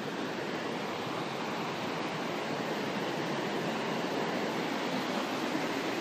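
Steady rushing of falling water from the Urlătoarea mountain waterfall, an even noise with no breaks.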